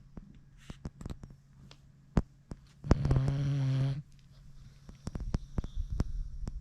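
British bulldog snoring: one loud snore about three seconds in, lasting about a second, between fainter breaths and scattered clicks.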